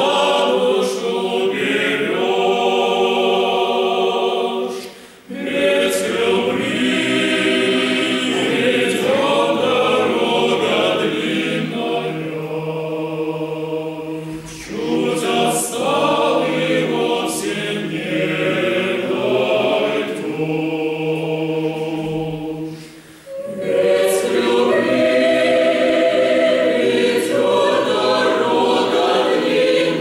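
Mixed choir of men's and women's voices singing a cappella in several parts, with short pauses between phrases about five seconds in and again just after twenty seconds.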